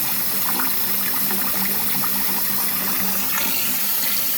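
Kitchen sink full of hot water draining steadily through a newly repaired ABS drain line after the plug is pulled. The water flows away freely, with no backup in the drain.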